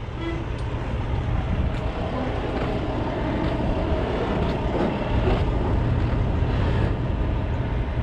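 Semi truck's diesel engine running at low speed while the truck rolls and turns, a steady low rumble with road noise.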